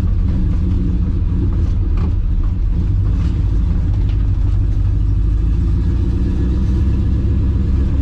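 Car engine running at a steady low drone while driving, heard from inside the cabin.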